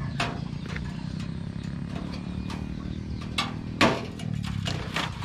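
Makeshift wire-mesh gate being pulled open by hand: scattered clinks and knocks of wire against the pole, the loudest about four seconds in, over a low steady hum.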